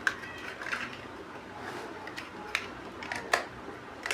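Plastic Lego bricks clicking and snapping as they are handled and pressed together: a few separate sharp clicks, the loudest about three seconds in.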